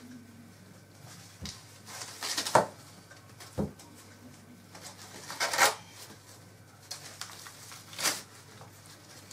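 Fresh sweet corn husks being torn and peeled off the cob by hand: short, crisp tearing rustles, three or four strokes, with a couple of soft knocks in between.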